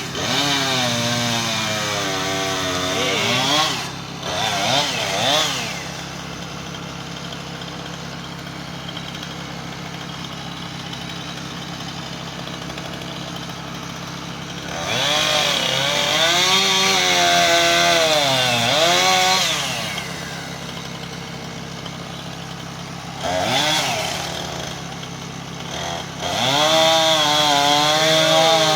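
Chainsaw cutting into a tree, revving up and bogging down in the cut in several long bursts and dropping back to a lower steady running note between them. A steady low engine hum runs underneath.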